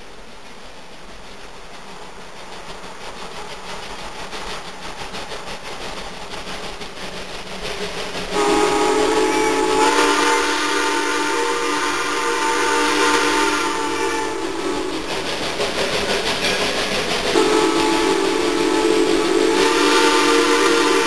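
Steam locomotive approaching, growing steadily louder, then its steam whistle blowing: one long blast of about six seconds starting about eight seconds in, and after a short gap a second long blast that carries on past the end. The locomotive is whistling for the road crossing ahead.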